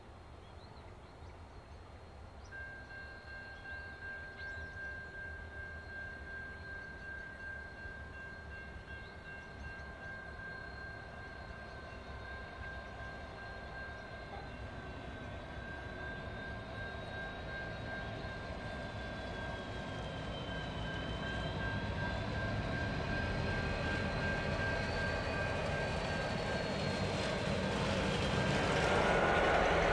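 The diesel-electric locomotives G523 and 8157 of a loaded grain train working slowly uphill, approaching and growing steadily louder, with an engine rumble and a steady high whine from about two seconds in.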